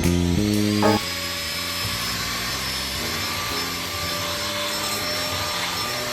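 LG CordZero A9 Air cordless stick vacuum starting up about a second in and running steadily with an even whirring hiss and a faint high whine, over quieter background music.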